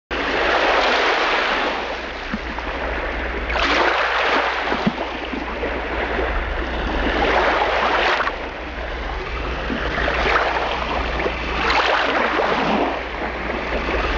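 Rushing, surf-like water noise that swells and ebbs every few seconds, over a low steady hum.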